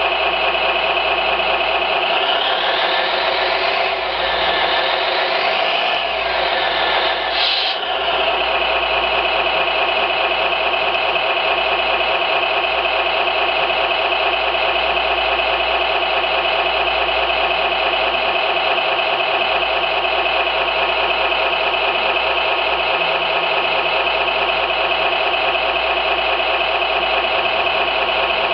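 RC model sound module (SMX sound card) playing a simulated engine idle through its small speaker, steady and even. Early on the engine note revs up and falls back twice, then settles into a constant idle.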